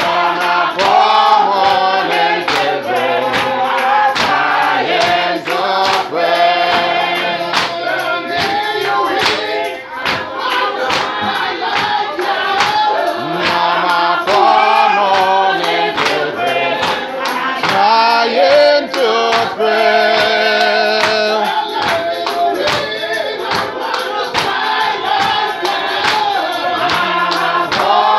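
Church congregation singing a gospel hymn together, with a tambourine shaken in a steady beat.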